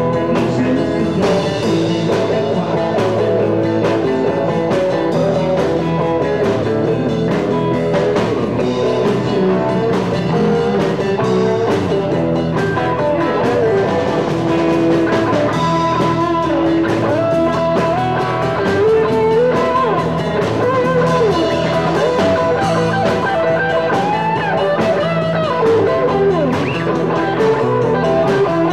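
Live rock band playing an instrumental stretch: electric guitars over bass and drum kit, with gliding, bent guitar notes.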